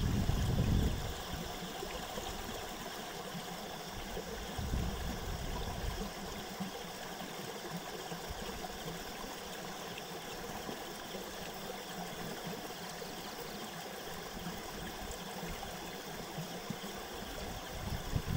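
Wind rushing steadily across the microphone and through the rice plants, with low buffeting gusts at the start and again near the end.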